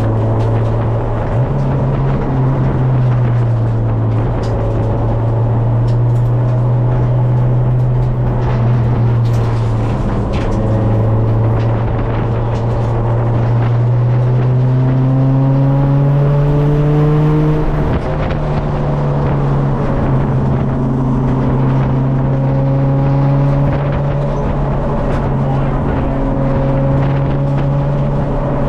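K24 four-cylinder engine of a swapped EK Honda Civic running on a lap, its pitch climbing slowly with engine speed and dropping suddenly about ten and eighteen seconds in.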